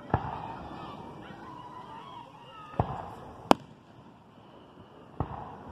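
Aerial fireworks shells bursting overhead: four sharp booms a second or more apart, the loudest and sharpest about three and a half seconds in.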